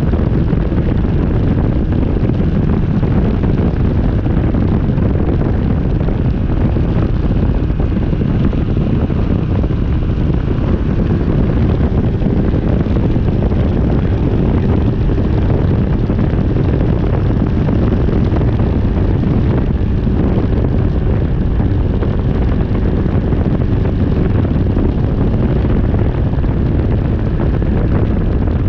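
Rotax 503 two-cylinder two-stroke engine of a Phantom X1-E ultralight running steadily at constant power, with wind buffeting the microphone.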